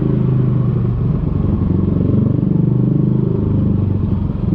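Yamaha Aerox 155 scooter's single-cylinder four-stroke engine running steadily while ridden, with a low, pulsing exhaust note that dips briefly about a second in and again near the end.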